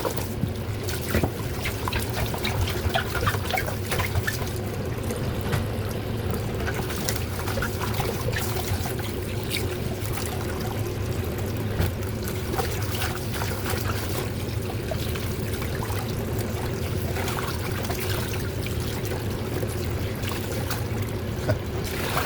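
Water trickling and pouring as fish is rinsed by hand, with small splashes throughout, over a steady low hum.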